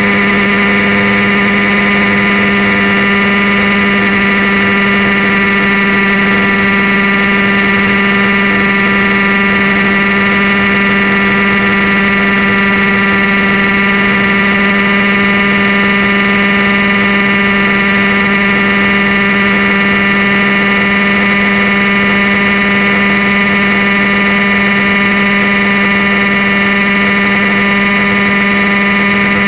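Airstar International Mongoose RC model helicopter running in flight on low rates and low idle, its engine and rotor making a steady drone that holds one pitch without revving.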